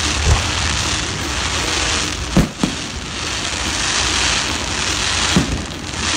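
Fireworks going off: a steady, dense crackling, with two sharp bangs close together about two and a half seconds in and another bang about five seconds in.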